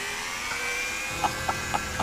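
Handheld electric polisher fitted with a Meguiar's Soft Buff foam pad, running against a motorcycle's plastic fairing while buffing out hairline scratches: a steady motor whine.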